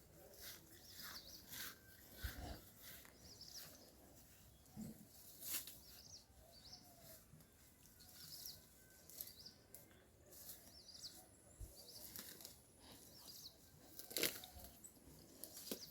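Faint small-bird chirps repeating throughout, with scattered crunching, rustling clicks; the loudest click comes near the end.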